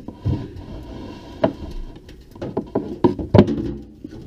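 Scattered knocks and clunks of an over-the-range microwave being handled and worked loose from under a wall cabinet: one about a second and a half in, then a run of them near the end.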